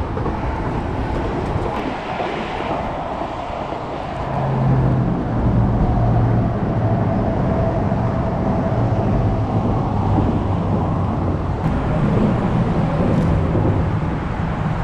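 Road traffic crossing a concrete bridge overhead, heard from underneath: a steady low rumble, with a faint tire whine in the middle.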